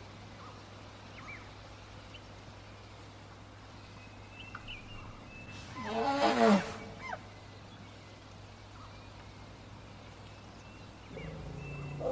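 An African elephant trumpeting once about six seconds in: a single loud, harsh call of about a second, falling in pitch. Faint bird chirps sound in the background.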